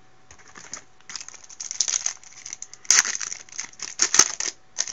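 Foil wrapper of a Bowman Platinum trading-card pack crinkling and crackling in the hands as it is taken from the box and opened, in a run of irregular crackles that are loudest about three and four seconds in.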